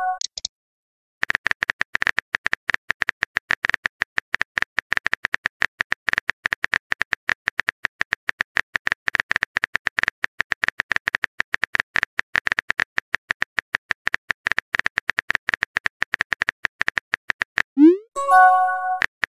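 Simulated phone-keyboard typing clicks from a texting app: a rapid, fast run of sharp tap clicks that lasts about sixteen seconds. Near the end they stop, and a short rising swoop and a chime of several tones follow as the message is sent.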